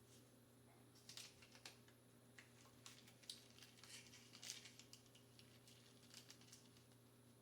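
Very faint, irregular clicking and crinkling: snack packaging and food being handled, with small clusters of clicks about a second in and again in the middle.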